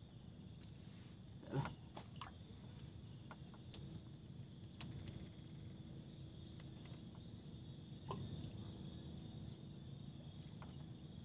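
Quiet outdoor ambience: a faint steady insect buzz, with a few short clicks and knocks.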